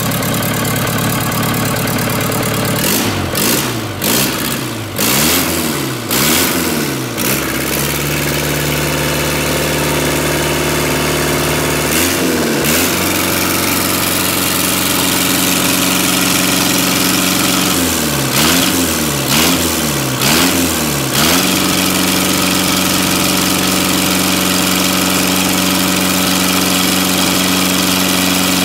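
Caterpillar 3034 four-cylinder diesel engine running on a stand, revved up and down in quick blips several times a few seconds in, once around the middle and again in a run later on, settling between blips at a steady, slightly raised speed.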